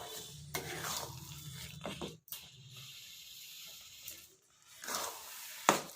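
Thick amla and jaggery chutney cooking in a pan over a gas flame, giving a soft sizzling hiss with a few light knocks. The sound cuts out briefly twice.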